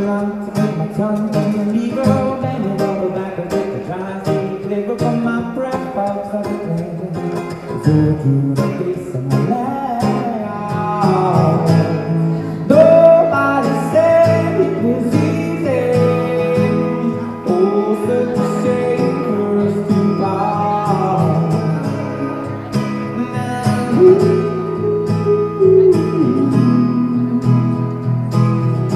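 Acoustic guitar played in a steady rhythm, with a man's singing voice carrying a melody over it through much of the stretch.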